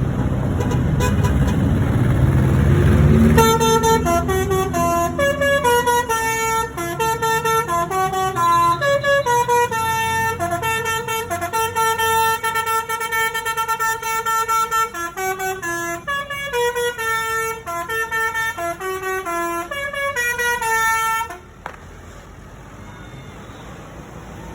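Bus telolet horn, a set of multi-tone air horns, playing a rapid stepped melody of horn notes for about eighteen seconds, then cutting off abruptly. It is preceded by a few seconds of low rumbling that rises in pitch, and followed by a quieter steady background hum.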